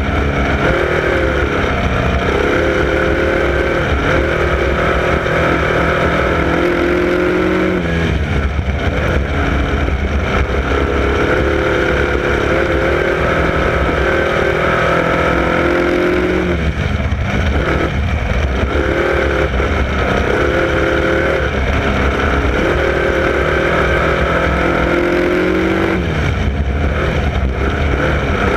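Wingless sprint car engine at race speed, heard from on board the car. The engine note climbs down each straight and falls off into each turn, about every eight or nine seconds as it laps the dirt oval.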